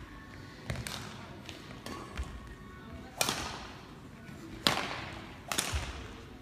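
Badminton rackets striking a shuttlecock: a handful of sharp cracks, the loudest about three, four and a half, and five and a half seconds in, each ringing on in the echo of a large sports hall.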